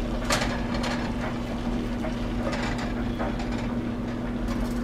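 A silicone spoon scrapes and taps against the bottom of a pot, several irregular strokes, as a stick of butter is stirred and broken up to melt. A steady low hum runs underneath.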